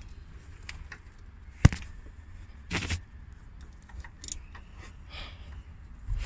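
Metal clicks and knocks of hand tools on a diesel engine as it is turned over by hand to bring the injection pump's first plunger up to mid-lift: one sharp click about a second and a half in, a short scrape about three seconds in, and a few lighter ticks.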